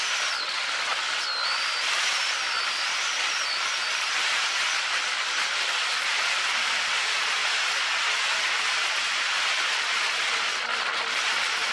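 Steady rushing hiss of wind over the camera's microphones on a moving motorcycle. The engine is barely heard beneath it.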